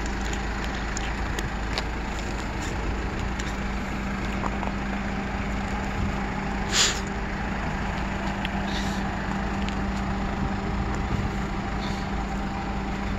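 Kia Bongo 3 one-ton box truck's diesel engine idling steadily, with one short hiss about seven seconds in.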